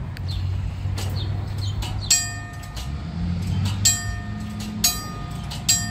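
Gong of a vintage peach basket wig-wag crossing signal clanging as its clapper swings: four strikes, the first about two seconds in and the rest roughly a second apart, each ringing on. A low steady hum runs underneath.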